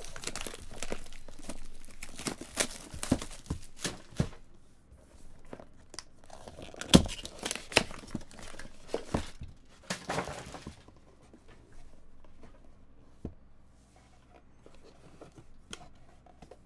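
Plastic shrink wrap being torn and peeled off a cardboard trading-card box, crinkling for about the first ten seconds, with one sharper knock about seven seconds in. After that it is quieter, with a few light taps of the box lid and foam insert being handled.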